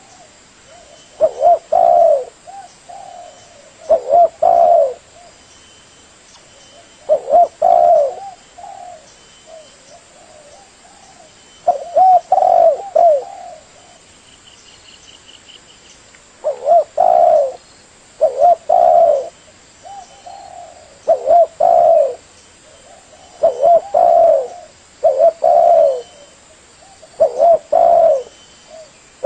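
Spotted dove cooing: a run of low, hooting coo phrases, each about a second long, repeated every two to four seconds with a longer pause about halfway through.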